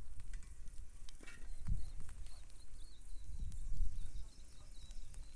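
Outdoor background with a low rumble, a soft thump about a second and a half in, and a few faint clicks.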